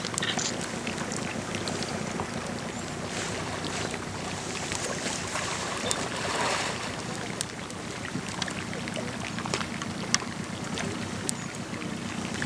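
Steady low hum of an idling boat engine, with wind and lapping water and scattered sharp little clicks.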